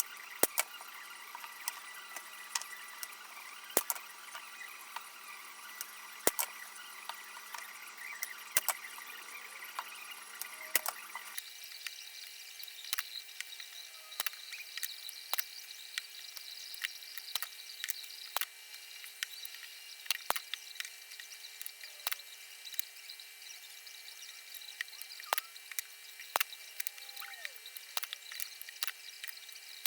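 Workshop tool noise: a steady high hiss with many irregular sharp clicks and ticks, the sound changing abruptly about eleven seconds in.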